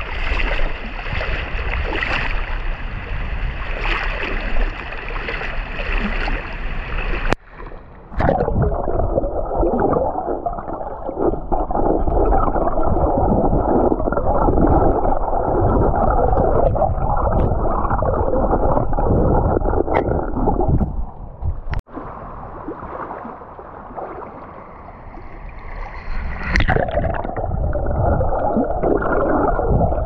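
Water running and gurgling. About seven seconds in it turns abruptly muffled and churning, as if heard from under the water, and it stays that way with a quieter dip about three-quarters of the way through.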